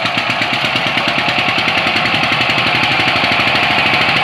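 Eicher tractor's diesel engine labouring under heavy load as it hauls a loaded sugarcane trolley through mud: a rapid, even chugging that grows slightly louder.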